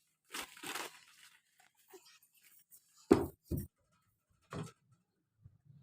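Crinkling rustles from toys and packaging being handled, with two short knocks about three seconds in, the first of them the loudest.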